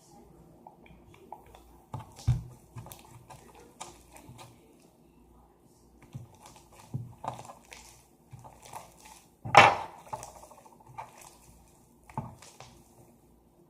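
Slime with dish soap being worked by hand in a container: irregular taps, clicks and short wet handling sounds, with one louder event about two-thirds of the way through.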